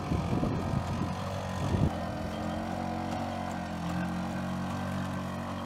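Boston Dynamics LS3 legged pack robot's onboard engine running with a steady droning hum as the robot walks.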